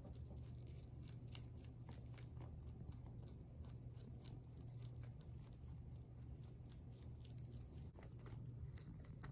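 Rabbit chewing curly kale leaves: a quick, irregular run of small crisp crunches, several a second.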